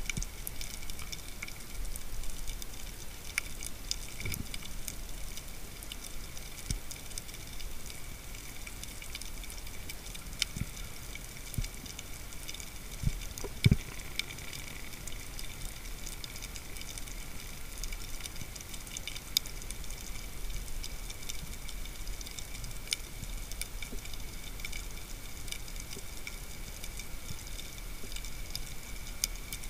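Underwater ambience picked up by a submerged camera: a steady hiss dense with fine crackling clicks, broken by a few dull knocks, the loudest about fourteen seconds in.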